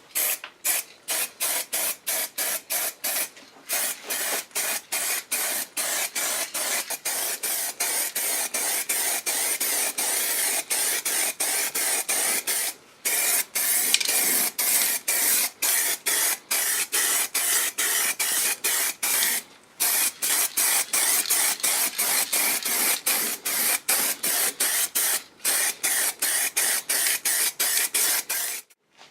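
Hissing spray released in rapid on-off bursts, about two a second at first, then in longer runs broken by brief pauses; it stops just before the end.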